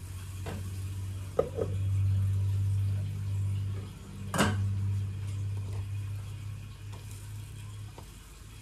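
Cookware handled on a stove: a few light clicks, then one sharp clack as the metal pan lid is lifted about four seconds in, over a steady low hum.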